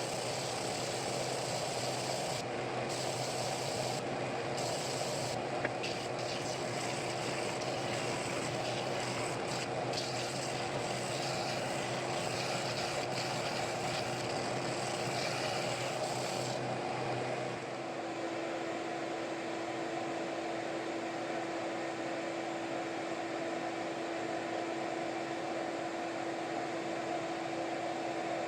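Oscillating sander running steadily with a motor hum while wood is sanded against it. About two-thirds of the way through, the higher sanding hiss drops away and the motor hum carries on.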